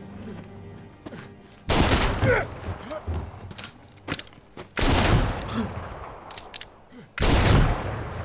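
Three revolver gunshots, about two and a half to three seconds apart, each followed by a long echoing tail.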